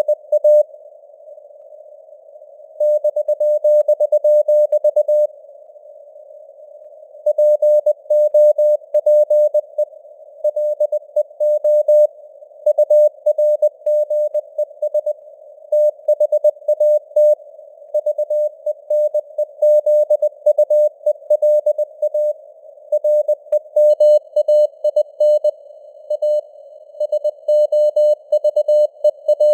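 Morse code (CW) sent at 20 words per minute: a single tone of about 600 Hz keyed in dots and dashes over a bed of simulated radio band noise. There are short pauses between words and groups, during which only the hiss is heard.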